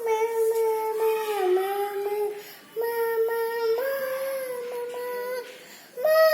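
A young child singing or chanting in three long, held notes of about two to three seconds each, with short breaks between them and small wavers in pitch.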